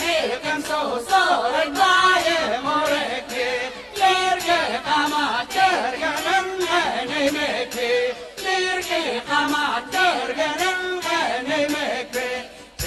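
Background music: singing voices over a steady beat.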